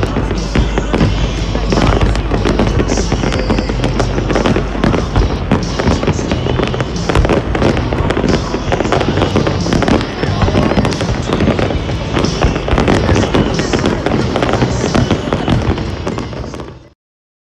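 Aerial fireworks bursting and crackling in a dense, continuous barrage, with music playing underneath; it all cuts off abruptly near the end.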